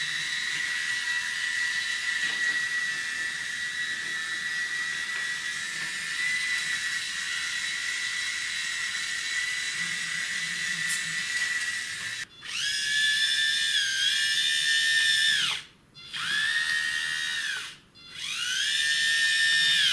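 Small electric motor of a toy train whining steadily as it runs along the wooden track. After a change of shot, a louder motor whine comes in three runs with short breaks, each rising in pitch as it speeds up and falling away as it stops.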